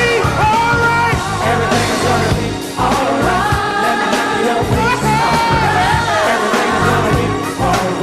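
Live gospel vocal ensemble singing with a backing band, voices holding and bending long notes over a steady bass line.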